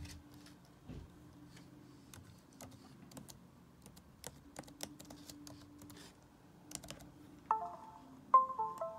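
Typing on a laptop keyboard: scattered light key clicks. Near the end comes a short electronic chime of a few notes, then another, louder one.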